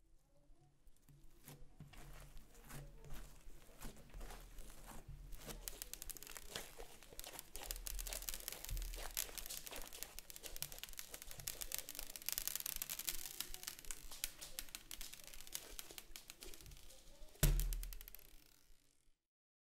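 Crunchy green slime full of little beads being pulled, squeezed and kneaded by hand, giving a dense crackling of tiny pops and sticky clicks. A single thump near the end as the ball is set down.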